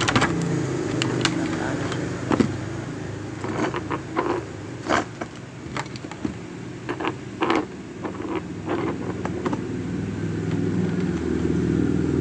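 Small plastic action-camera accessory parts clicking and tapping as they are handled and fitted together, a scattered series of sharp clicks, over a steady low engine-like hum.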